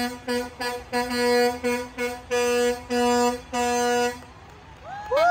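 Dump truck air horns blasting for parade watchers: a low horn sounded in a rapid string of about eight short blasts, then about five seconds in a second, higher-pitched air horn slides up into one long held blast.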